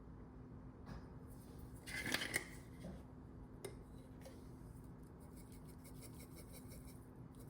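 Faint kitchen handling sounds over a low steady hum: a short scrape or rustle about two seconds in, a couple of single clicks, then a quick run of light rattling ticks, typical of seasonings being shaken into a crock pot.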